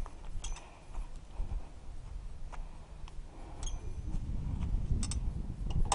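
Bicycle rolling over a dirt and gravel track, with a low rumble and scattered clicks and rattles from the bike. The rumble gets louder near the end.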